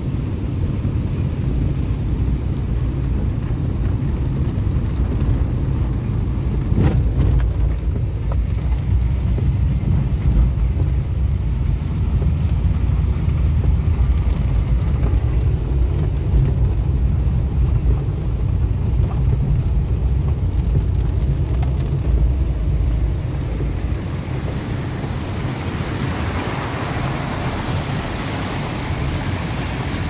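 Vehicle driving on a wet dirt road in rain, heard from inside the cabin: a steady low rumble with a few knocks about seven seconds in. Near the end the rumble eases and a hiss of rain and water takes over.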